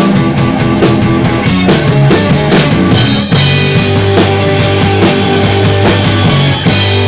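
A live rock band playing loud: drum kit, distorted guitar and bass. About three seconds in the cymbals come in over a held low bass note.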